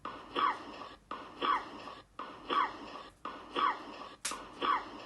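A man's cough, the same cough repeated at a steady pace about once a second, each with a falling, voiced tail. A sharp click cuts in about four seconds in.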